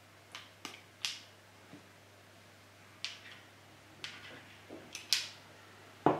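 Spoon clicking and tapping against a glass jar as thick plum butter is spooned and packed into it: a string of short sharp taps. Near the end comes a louder, duller knock of the glass jar on the wooden cutting board.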